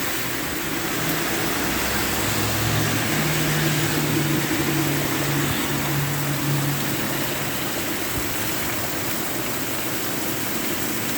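Heavy rain coming down steadily, a loud even hiss. From about two seconds in, a low engine hum from a passing vehicle sits under it for several seconds.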